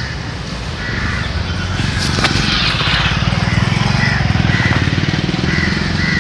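A motor vehicle's engine running steadily, its low pulsing sound swelling about two seconds in and holding, with a short click and a hiss at about the same moment.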